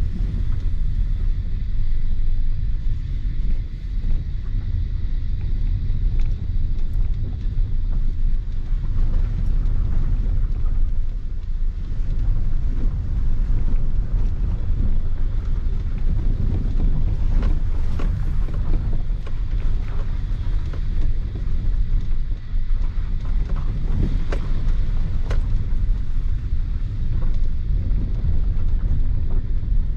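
Maruti Suzuki Ignis heard from inside the cabin while driven in second gear over a rough, broken road. Engine and tyres make a steady low rumble, and knocks and rattles come through now and then as the car bounces, most of them around the middle and later part.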